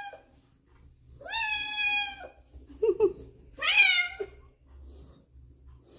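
Ginger tabby cat meowing twice: a long, level meow lasting about a second, then a shorter meow that falls in pitch.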